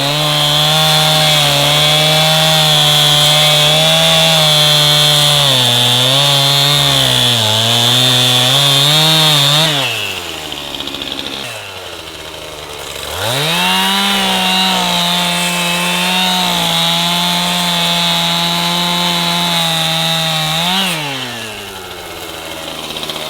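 Two-stroke chainsaw at full throttle cutting cedar, twice: the engine note sags as the chain bites into the wood, then falls away when the throttle is let off. After a short lull it revs up again for a second cut of about eight seconds.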